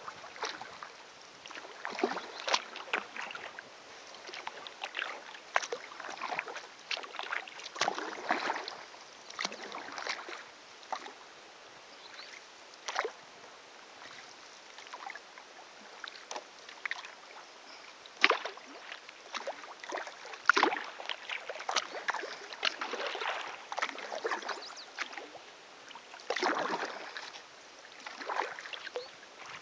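Kayak paddle strokes: a double-bladed paddle dipping and splashing in calm water at an uneven pace, with drips between strokes and a lull of a few seconds around the middle.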